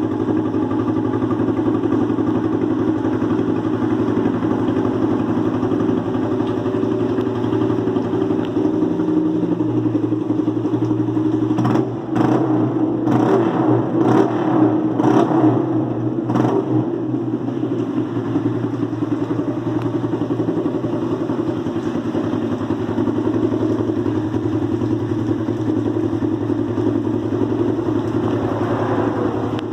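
An engine running steadily at a constant low pitch, with a run of short, sharp bursts about twelve to sixteen seconds in.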